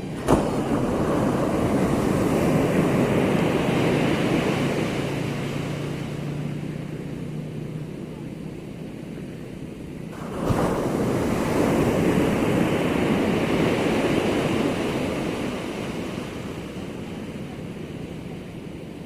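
Ocean waves at high tide breaking on the shore, twice. One wave crashes suddenly just after the start and washes out over several seconds; a second breaks about ten seconds in, swells and fades.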